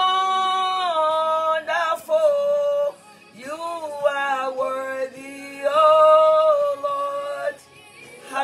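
A woman singing a slow worship song solo, holding long notes that waver and slide at the ends of phrases, with two short breaths between lines.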